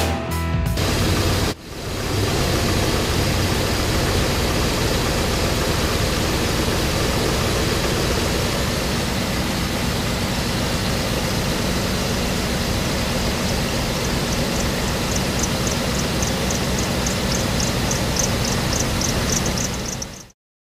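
1999 Dodge Ram 1500's engine idling steadily with the hood open, heard close to its air intake. A faint, rapid light ticking rides on it over the last several seconds, and the sound cuts off abruptly near the end.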